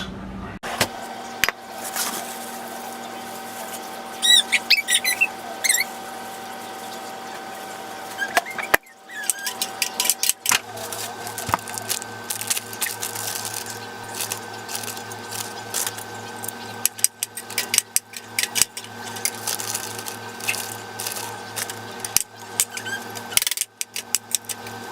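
Household clatter: repeated clicks and knocks over a steady electrical hum, with a few high squeaks about four to five seconds in.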